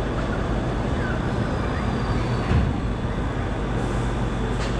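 Steady rumble of a steel launch roller coaster's train on its track as it slows and comes to rest between launches, with a low steady hum underneath and a single thump about halfway through.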